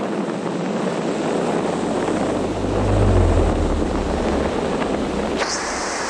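Rushing wind of a skydiving freefall buffeting the camera's microphone, a loud even rush that swells into a deeper rumble midway, with a sharper hiss joining near the end.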